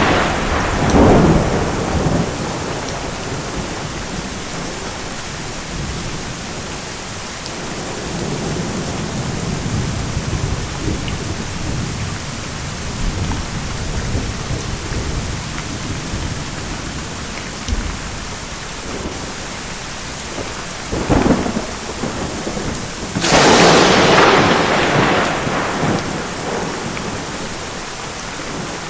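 Steady rain with thunder. A rumble fades out at the start and low rolling thunder runs through the middle. Two sharp thunderclaps come close together in the last third, the second louder and longer.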